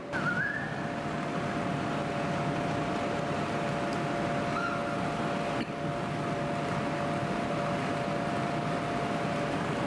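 Steady whooshing hum of the electric blowers that keep the inflatable bounce houses and slide inflated, with two steady hum tones through it. A brief faint high rising squeal comes just after the start and again about halfway.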